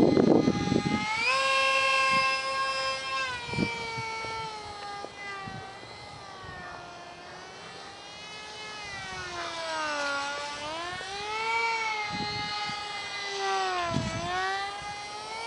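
Ultra micro RC jet's small electric motor whining in flight, the pitch rising and falling with the throttle and dipping lowest about ten seconds in and again near the end. A brief low rumble at the very start is the loudest sound.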